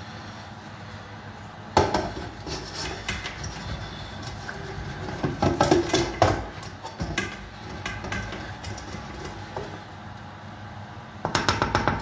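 Wooden spoon scraping and knocking against a metal frying pan while sauce is scraped out of it into a stockpot. The irregular knocks and scrapes begin about two seconds in, with a quick run of knocks near the end.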